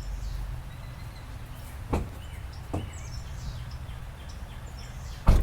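Steady low rumble with a few short knocks, the loudest near the end, and faint bird chirps.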